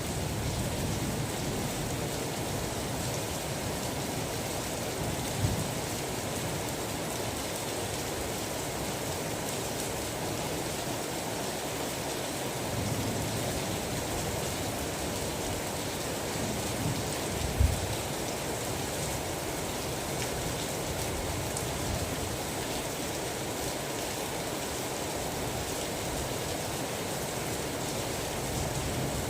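Steady rain falling, an even hiss throughout, with two brief low thumps, one about five seconds in and a louder one past the middle.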